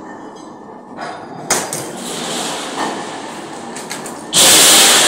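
Metalworking noise around a large sheet-steel jaggery pan: knocks and clatter on the steel, then a loud harsh rush of noise lasting just under a second near the end.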